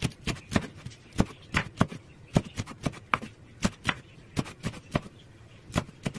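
Kitchen knife chopping long green peppers into small pieces on a wooden cutting board: a quick, uneven run of knocks, about three or four a second, as the blade cuts through and strikes the board.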